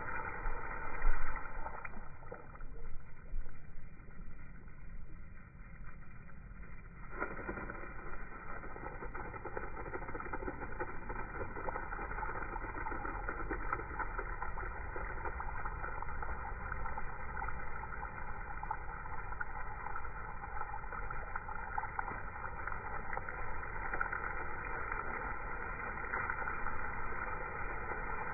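Water spray used for watering, a steady rushing hiss of falling and splashing water. It is slowed down with the slow-motion picture, so it sounds low and muffled, with a few louder splashes in the first couple of seconds.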